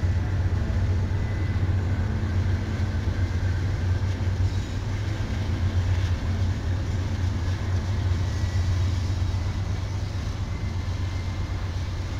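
Diesel freight locomotives rolling across a steel girder bridge: a steady, deep engine rumble with rail and wheel noise.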